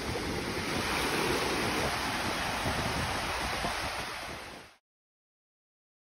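Small sea waves washing up onto a sandy shore, a steady rushing noise with wind buffeting the microphone. It fades out and stops abruptly about a second before the end.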